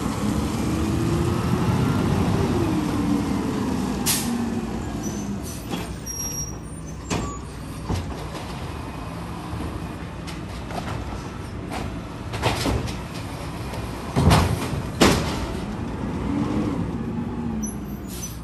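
Automated side-loader garbage truck's diesel engine pulling away, its pitch rising then falling near the start and again near the end. Several short, sharp air-brake hisses come in between, the loudest two close together about two thirds of the way in.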